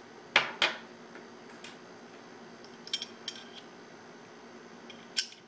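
Metal clicks and clacks of an American Tactical C45 pistol being taken apart as the slide is released off the frame. There are two sharp clicks near the start, a few lighter clicks around the middle, and one more sharp click near the end.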